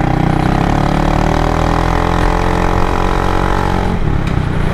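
Kymco Xciting S 400i maxi scooter's engine, running through an aftermarket Orion carbon-tip exhaust at steady throttle. Its pitch sags a little, and the engine eases off about four seconds in.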